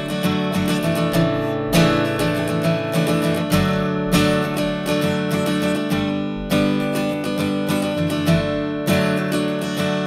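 Background music: a strummed acoustic guitar.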